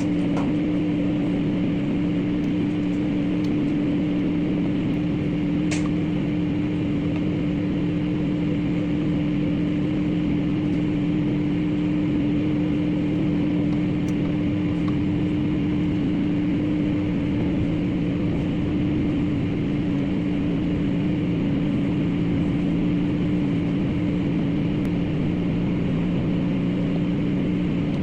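Microwave oven running with a steady hum, with a single brief click about six seconds in.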